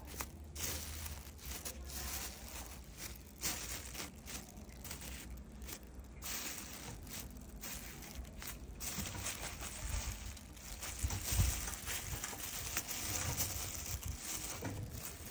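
Plastic bags crinkling and rustling as a hand grips and turns bagged 5-inch firework display shells, with a few dull low bumps about ten seconds in.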